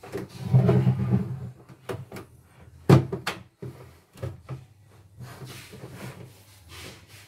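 Plastic embroidery unit of a portable embroidery machine being handled and slid onto the machine bed: scraping and rubbing for the first second and a half, a sharp knock about three seconds in, then several lighter clicks and taps as it is seated.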